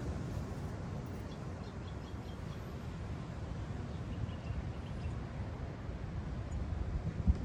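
Wind noise on the microphone, with a few faint high bird chirps a little over a second in and again around four seconds. A single knock near the end.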